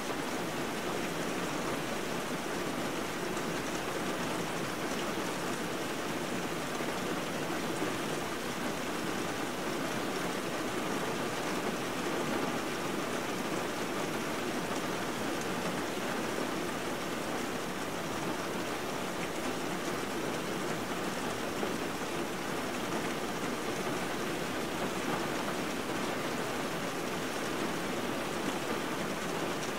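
Steady rain sound: an even, unbroken rushing hiss with no changes, the masking track typical of subliminal videos, under which the affirmations are meant to lie unheard.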